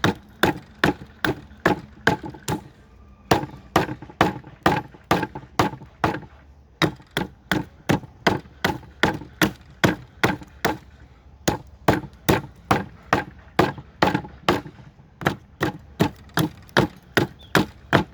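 Hatchet chopping into a cedar block: quick, sharp strikes, about three a second, with a few short pauses between runs.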